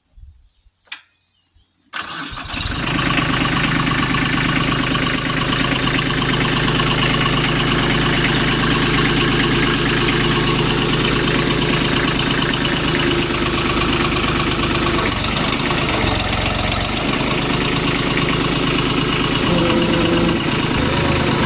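Kubota tractor's diesel engine starting abruptly about two seconds in, after a couple of short clicks, then running steadily. It starts now that the faulty safety switch behind the no-start has been replaced.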